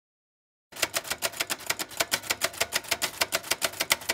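Typing sound effect: a rapid run of key clicks, about nine a second, starting just under a second in, laid over text being typed out on screen.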